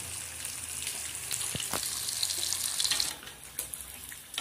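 Breaded corvina sizzling as it fries in a pan of hot oil. The sizzle grows fainter about three seconds in, and a few light clicks follow.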